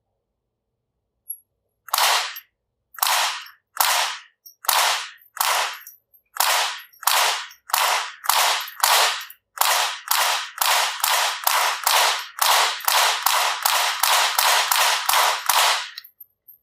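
Rossi RS22 .22 LR semi-automatic rifle firing about two dozen shots in a row, each a sharp crack with a short ring after it. The shots come faster toward the end, about two a second, as the 25-round magazine is emptied.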